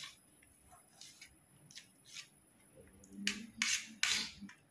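Knife chopping a red onion against a steel plate: irregular short crisp cuts, a few a second, the loudest and longest about three to four seconds in.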